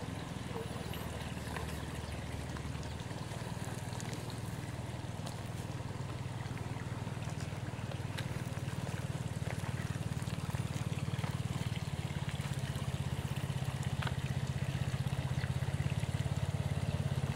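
A small engine running steadily with a low, even hum that slowly grows louder.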